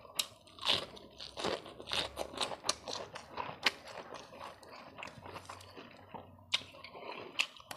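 A person chewing a bite of boiled cabbage, with crisp crunches and wet chewing sounds in quick, irregular strokes that thin out about halfway through and pick up again near the end.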